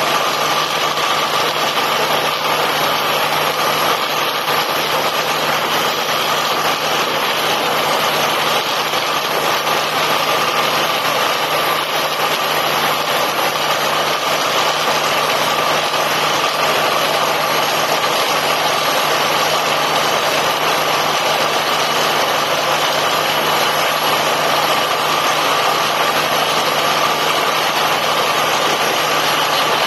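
Borewell drilling rig running steadily: a continuous, loud machine noise with a constant hum and no change in pitch.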